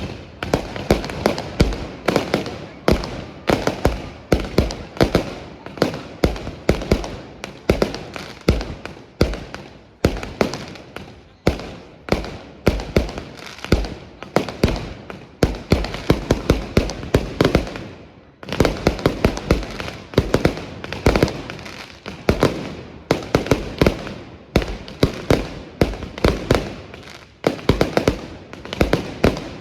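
Fireworks display going off continuously: rapid, dense bangs and crackling shell bursts, several a second, with a brief lull about two-thirds of the way through before the barrage resumes.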